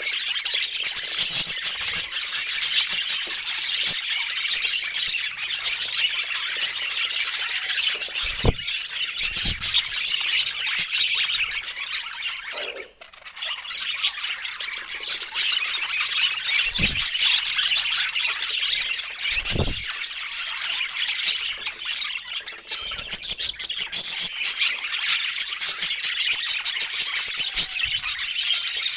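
Budgerigar chatter: a continuous dense stream of warbling chirps and squawks, breaking off briefly about halfway through. A few short low thumps sound under it.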